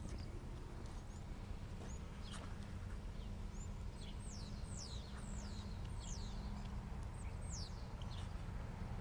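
A bird calling with a run of about six high whistles, each sliding down in pitch, in the second half, over a steady low rumble.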